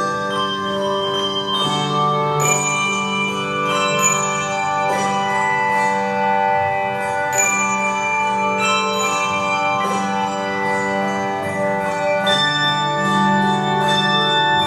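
Instrumental music: sustained chords with ringing, bell-like struck notes.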